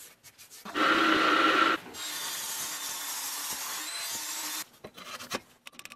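Shaping a cast aluminium axe handle: a loud scraping burst lasting about a second, then an Evolution saw cutting through the aluminium bar with a steady hiss for about two and a half seconds, ending in a few clicks.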